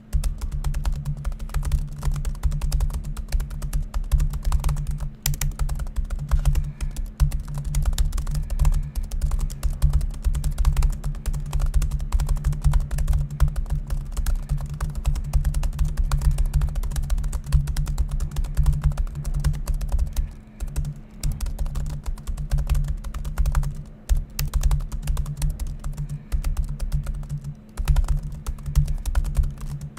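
Fast, continuous typing on the Asus Zenbook Flip S (UX370UA) laptop keyboard at about 90 words per minute: a rapid stream of key clicks with a few brief pauses, over a steady low hum.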